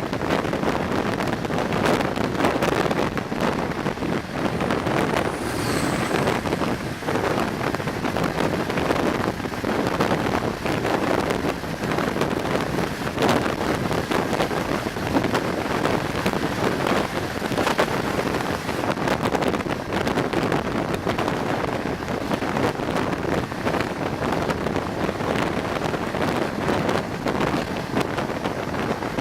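Heavy wind buffeting the microphone from a moving passenger train, a steady rushing noise with scattered short knocks over the train's running noise.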